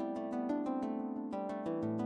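Instrumental background music: a quick, even run of plucked-string notes over a sustained bass line.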